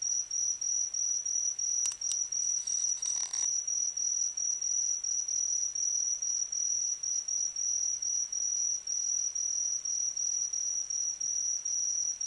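An autumn singing insect trilling one steady high-pitched note that pulses about three times a second. A brief scratchy rustle cuts in about two to three seconds in.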